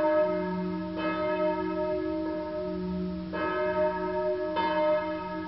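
A bell struck again and again, about once every second and a quarter, each strike ringing on into the next.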